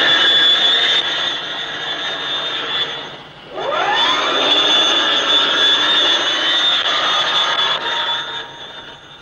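Loud, high engine whine. It drops away about three seconds in, then comes back with a quick rising sweep of pitch, holds steady, and fades near the end.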